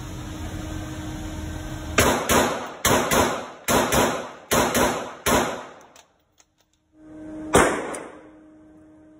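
Glock 19X 9mm pistol fired at an indoor range: nine sharp shots from about two seconds in, mostly in quick pairs, each echoing off the range walls. After a short gap there is one more sharp crack, the loudest of all, near the end.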